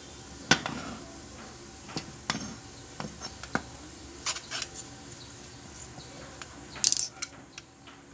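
Small metal parts and tools being handled while a sewing-machine clutch motor is cleaned: scattered clicks and clinks, with a short burst of scraping about seven seconds in.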